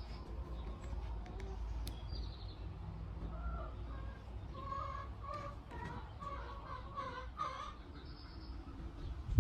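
Faint bird calls, a few short pitched calls bunched through the middle, over a steady low rumble.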